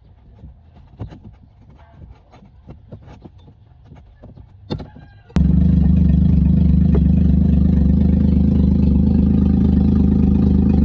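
A few faint clicks and knocks, then about five seconds in a car engine is suddenly heard running loudly and idling steadily.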